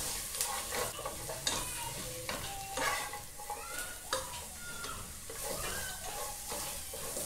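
Julienned carrots frying in oil in a non-stick cooking pot, sizzling softly while a spatula stirs and scrapes them around, with scattered taps and brief squeaks of the spatula on the pan.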